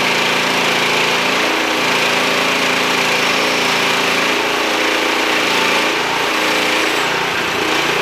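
Hudson portable band sawmill running steadily at constant engine speed, sawing through a black walnut log.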